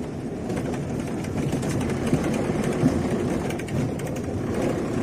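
Steady engine and road rumble of a car, heard from inside the cabin while it drives along.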